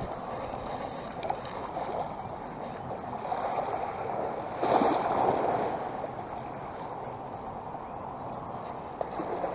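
Small waves lapping on a sandy shore, a steady wash with one larger wave washing up about five seconds in.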